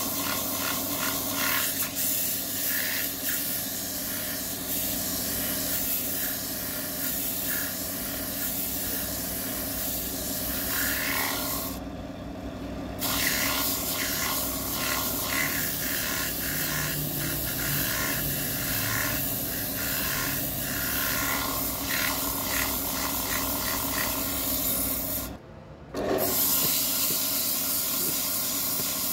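Wood lathe running steadily while a hand-held tool rubs and scrapes against the spinning wood in short repeated strokes, with a brief break about three-quarters of the way through.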